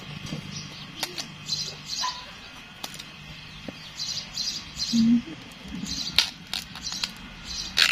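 Bamboo side shoots being snapped off the clump by hand: several sharp snaps, the loudest near the end, over birds chirping.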